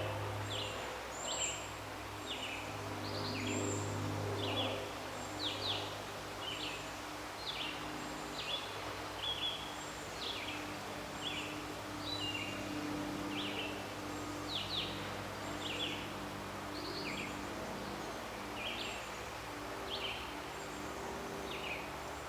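A small bird chirping over and over, short high chirps that drop in pitch, about one a second, over a steady low hum.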